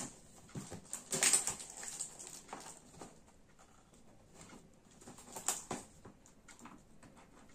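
Fingernails scratching and picking at packing tape on a cardboard box, with irregular small scrapes, crinkles and taps, the loudest a little over a second in and again about five and a half seconds in. The box is taped up tightly.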